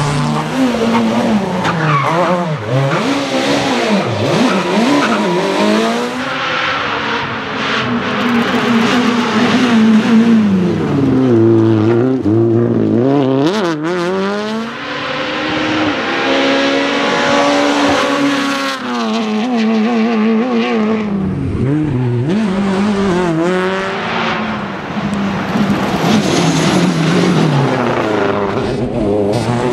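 Rally cars, among them a Mitsubishi Lancer Evolution WRC, passing one after another at speed. Their turbocharged four-cylinder engines rev up and down through gear changes, the pitch rising and falling again and again.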